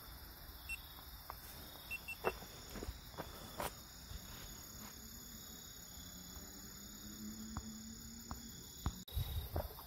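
Night insects chirping steadily in several high, unbroken tones, with scattered light clicks and knocks of gear being handled.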